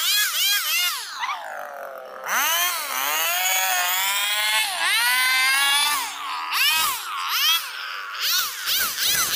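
Powered hedge trimmer running as it cuts through a hedge, its motor whining with a pitch that keeps dipping and rising as the load on the blades changes. The pitch drops lowest about two seconds in, then climbs back.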